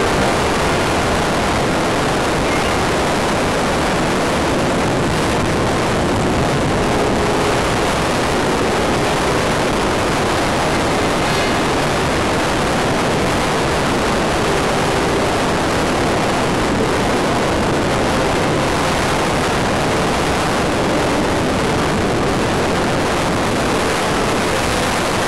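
Steady, loud rushing of air over the onboard camera's microphone on a flying RC Wot 4 model plane, with no clear engine note standing out.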